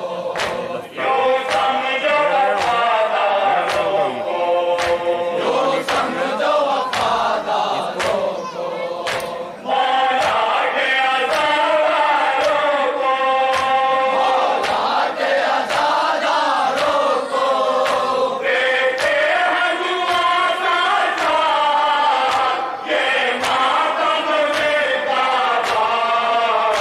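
Men chanting a nauha together, their chants carried over a steady beat of hands slapping on chests in matam.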